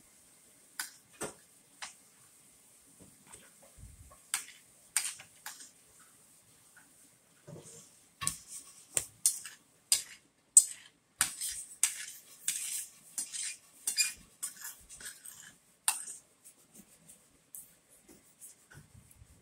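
Metal spoon and fork clinking and scraping against a ceramic plate as food is scooped up, in scattered strokes at first and then a quick run of clinks in the middle.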